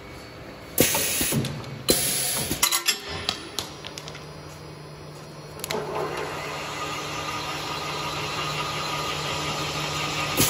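Horizontal double-end tapping machine for rebar coupler sleeves working through its automatic cycle. There are two loud, brief noises about one and two seconds in, then the machine's motor runs with a steady hum from about six seconds in.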